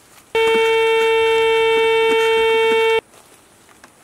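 Metal detector sounding one steady, unchanging tone for about two and a half seconds, cutting off sharply: the detector's signal that there is metal under the coil.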